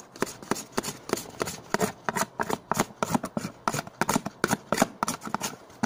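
Plastic spoon stirring a glue and liquid-detergent mixture in a plastic tub as it starts to form into slime. It makes rapid, irregular scraping and clicking against the tub, several strokes a second.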